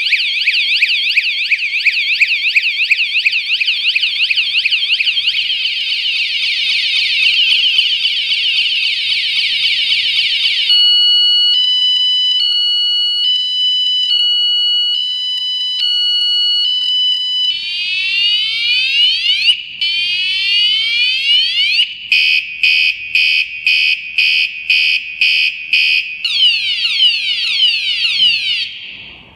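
KS-SF22R vehicle anti-theft alarm's siren going off after being triggered again, cycling through its ring tones. First a fast warbling wail for about ten seconds, then alternating two-tone beeping, then repeated rising whoops, then rapid pulsed beeps, and a fast warble again before it stops near the end.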